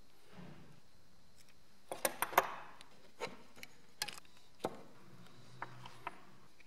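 Plastic clicking and tapping as a white PVC pipe ring is handled and fitted over a GoPro Hero 3's lens: a quick cluster of clicks about two seconds in, then a few scattered single taps.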